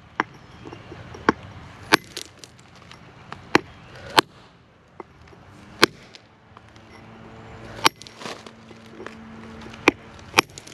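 Hammer striking granite stone: sharp single blows, irregularly spaced a second or two apart, about nine in all.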